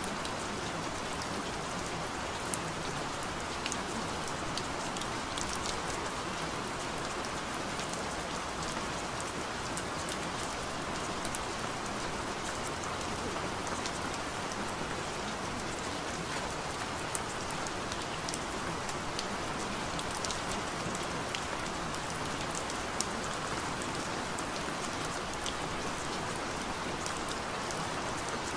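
Steady rain: an even hiss with many scattered sharp drop ticks.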